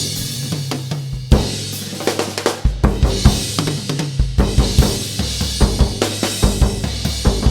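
Live ensemble music driven by drums: a busy drum pattern with cymbals and a deep bass drum over sustained low notes that move in steps like a bass line, kicking in suddenly at the start after a few lone hits.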